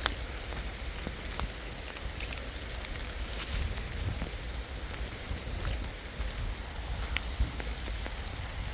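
Steady rainfall with scattered sharp ticks of single drops, over a low rumble.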